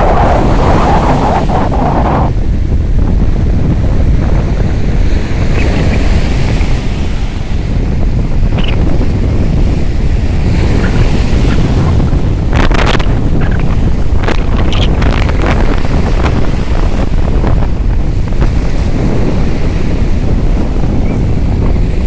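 Rough Sea of Azov surf breaking and washing up a sandy shore, with strong wind buffeting the microphone in a constant low rumble. The rush of a breaking wave is loudest in the first couple of seconds.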